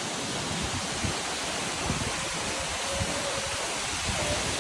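Steady rush of falling or fast-flowing water, with wind buffeting the microphone underneath.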